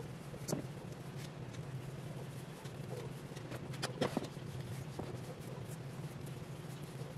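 Faint rustling and a few light ticks of hair being handled during braiding, the strongest a little past the middle, over a steady low hum.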